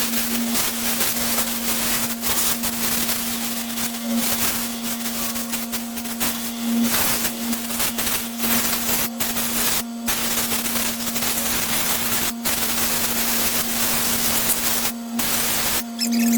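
High-pressure water spray hissing steadily over a car radiator to wash out packed willow fluff, with a steady hum underneath, cutting out briefly a few times in the last several seconds.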